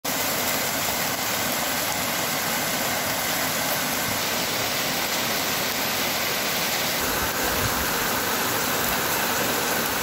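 Heavy rain falling steadily, with runoff streaming off the roof onto wet paving.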